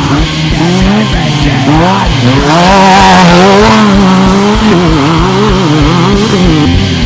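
Off-road race vehicle's engine revving hard, its pitch rising and falling again and again as the throttle is worked.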